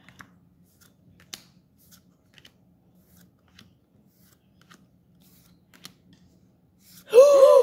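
Pokémon trading cards handled one at a time, with soft, scattered clicks and flicks as each card slides off the stack. Near the end a high-pitched voice exclaims loudly.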